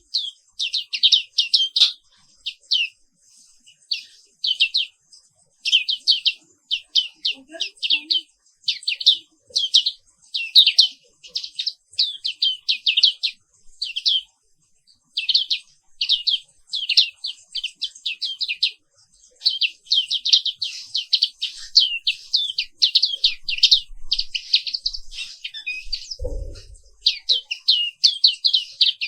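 White-eye (pleci Papua) song: rapid, high-pitched chirping trills in quick phrases with short gaps, becoming nearly continuous in the second half. A brief low thump about three quarters of the way through.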